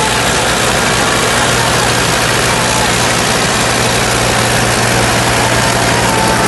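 Farmtrac 35 Champion and Eicher tractors' diesel engines running hard and steady under heavy load, the two tractors pulling against each other in a tug-of-war.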